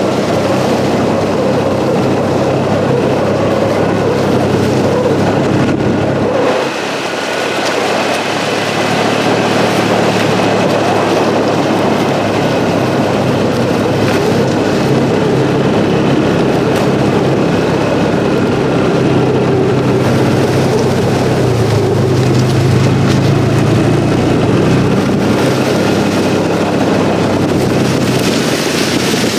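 Motor vehicle running under way, a steady engine drone with road or wind noise. The engine note drops in the low end about seven seconds in and rises for a few seconds past the middle, as with changes in speed.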